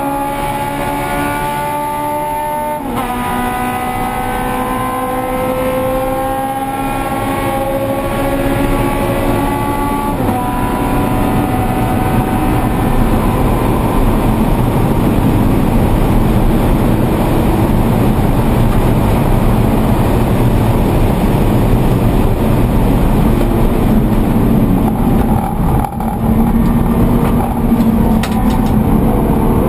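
Scion FR-S's flat-four engine heard inside the race car's cabin, accelerating hard through the gears. The pitch climbs, then drops sharply at gear changes about three and ten seconds in. A long, louder stretch of engine and rushing road noise at high speed follows, with a brief dip in level near the end.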